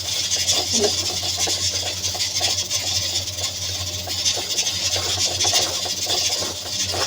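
Plastic bag rubbing and crinkling as a ball of ground fish paste is squeezed and shaped round inside it by hand, over a steady low hum.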